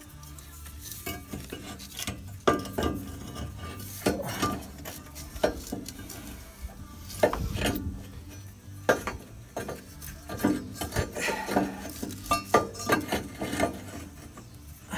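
Cast-iron exhaust manifold being worked into place by hand in a Ford 5.4 V8's engine bay, clinking and scraping against the studs and surrounding metal in irregular knocks, the loudest knocks about two and a half, seven and nine seconds in.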